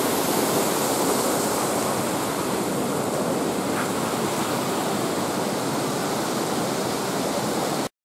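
Rushing water of a shallow rocky stream below a waterfall: a steady, even hiss that cuts off abruptly near the end.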